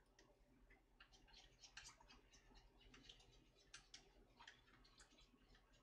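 Faint, irregular light clicks of a utensil against a ceramic bowl, several a second, as eggs are stirred and beaten.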